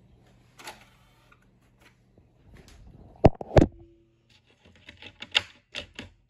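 Hand-handling noise of a disc and plastic DVD case: two sharp knocks a little over three seconds in, followed by a run of quick plastic clicks and taps, over a faint steady hum.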